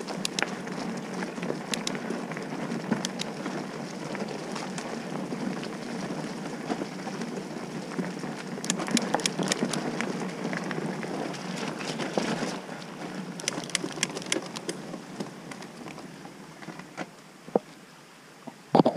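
Mountain bike tyres rolling fast over leaf litter and dirt, a steady rumble with frequent sharp clicks and rattles from the bike over the rough surface. The rumble eases after about twelve seconds as the bike slows, leaving scattered clicks, and a short loud sound comes just before the end.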